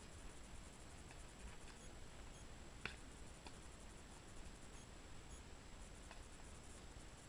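Near silence with a few faint scattered clicks, one sharper click about three seconds in.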